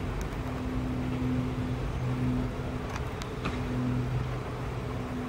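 Freight train of autorack cars rolling away along the tracks: a steady rumble with a low hum that comes and goes, and a few faint clicks about three seconds in.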